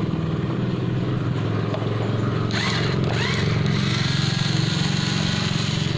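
Steady low mechanical hum like a running engine, with a hiss joining about halfway through.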